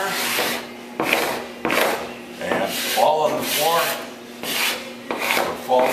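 Sandvik hand scraper dry-scraping old antifouling bottom paint off the cypress strakes of a lapstrake wooden boat, in a series of short rasping strokes about one a second. The dry paint comes away as powder rather than being stripped chemically.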